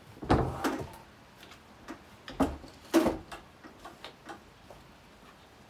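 Clicks and knocks of a chainsaw and a scrench tool being handled on a workbench: a few sharp metal knocks in the first three seconds, then lighter ticking as the chain on the bar is worked by hand.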